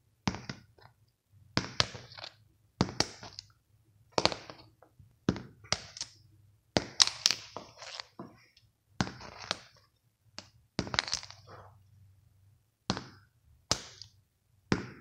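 A plastic highlighter tossed and flipped again and again onto a spiral notebook: about a dozen sharp clacks, roughly one a second, each followed by a quick rattle of smaller bounces as it tips over.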